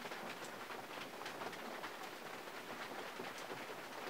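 Rain falling on a 1951 Mercury's body and window glass, heard from inside the car: a steady hiss with irregular sharp taps of single drops.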